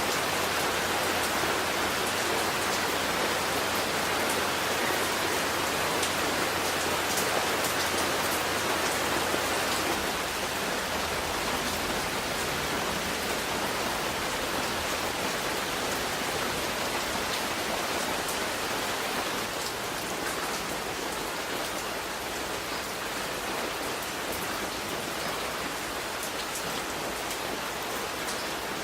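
Steady rainfall, a dense even hiss with fine scattered drop hits. It changes to a slightly quieter level about ten seconds in and again about twenty seconds in.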